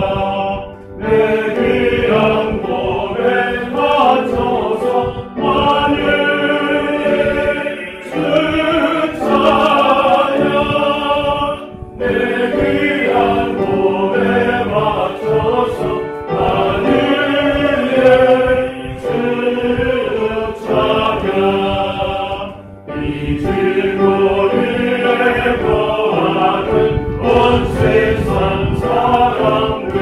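A congregation singing a hymn together, line by line, with short breaks between phrases.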